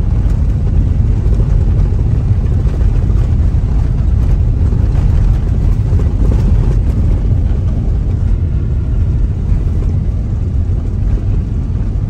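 Steady low rumble of a car driving on a rough, unpaved construction road, heard from inside the cabin: tyre and road noise over the engine.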